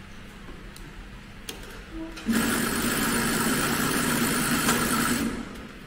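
Keestar 1510-L14 heavy-duty FIBC big bag sewing machine running at speed, a test run after adjustment. It starts abruptly a couple of seconds in, runs steadily for about three seconds and winds down near the end.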